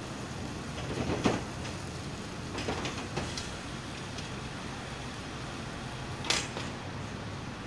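Steady low rumble of outdoor city traffic, with a few short sharp knocks or clicks: one about a second in, a small cluster around three seconds, and the loudest about six seconds in.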